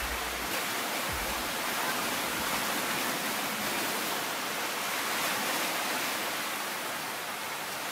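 Ocean surf washing steadily onto the shore, an unbroken hiss of breaking water that swells gently about five seconds in and eases near the end.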